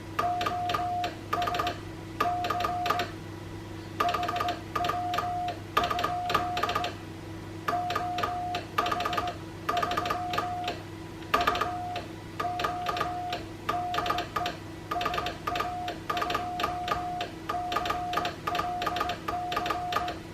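Morse code keyed on a homebrew Paraset valve transceiver: a tone of about 700 Hz switching on and off in dots and dashes, with the clicks of the key's contacts on each element, over a steady low hum.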